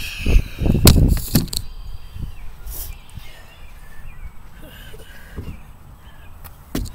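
Knocks and a low rumble close to the camera's microphone for the first second and a half, as the boy moves right by it. Then quieter outdoor background with a few faint chirps.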